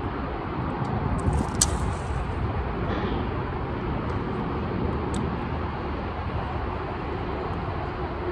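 Steady noise of road traffic from an overhead highway bridge, with a couple of brief sharp clicks, one about a second and a half in and another about five seconds in.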